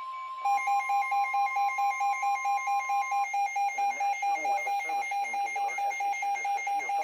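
Steady NOAA Weather Radio 1050 Hz warning alert tone, cut off about three seconds in. Over it, from about half a second in, an electronic weather-radio alarm beeps rapidly and loudly, about five beeps a second, with faint broadcast speech underneath in the second half.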